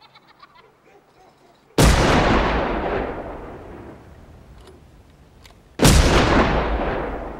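Two shotgun blasts about four seconds apart, each a sudden loud bang that dies away in a long echo.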